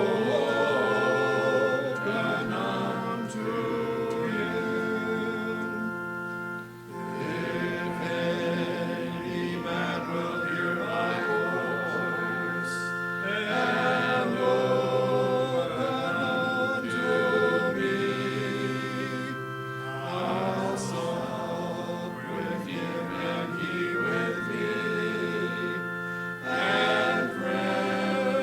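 Church congregation singing a hymn together, over steady held chords from an accompanying instrument, with brief breaks between lines.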